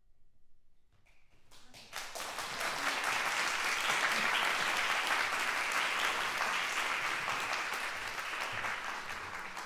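Audience applause in a concert hall: after about a second of near quiet, clapping breaks out, swells quickly into a full, steady ovation and begins to thin near the end.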